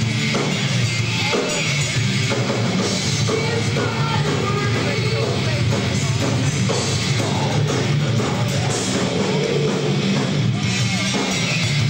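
Live heavy metal band playing loud, with distorted electric guitar and a drum kit, heard from within the audience.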